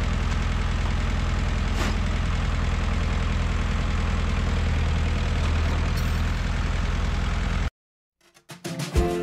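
1969 Massey Ferguson tractor's engine running steadily at an even pace. It cuts off abruptly near the end, and music starts shortly after.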